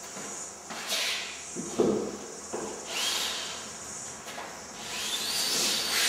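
Handling noise of a drywall compound applicator tube being carried and raised into the wall-ceiling corner, with footsteps in an empty room. There is a knock a little under two seconds in and a swishing hiss near the end as the cornice head is pushed up to the corner.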